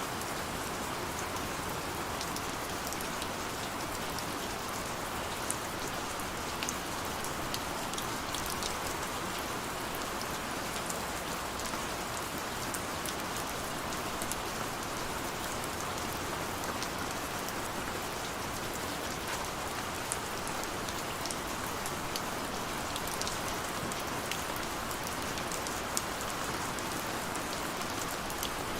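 Steady rain: an even, unbroken hiss with scattered sharp drop ticks.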